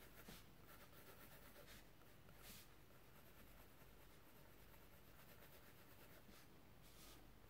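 Faint pencil strokes scratching on a sketchbook page, a few short strokes over near silence.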